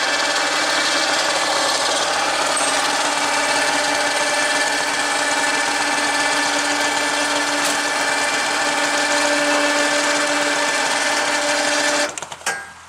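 Powered winch running steadily, paying out cable to lower a hinged boat mast; it stops abruptly about twelve seconds in.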